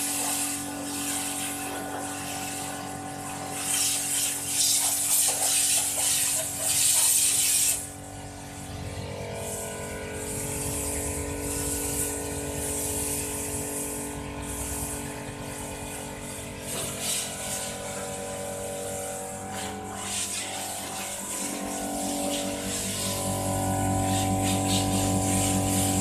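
Self-service car wash machine's high-pressure pump running with a steady hum while the spray gun jets water onto a van's body: a loud hiss for about the first eight seconds, then a softer spray. Near the end the pump's hum grows louder.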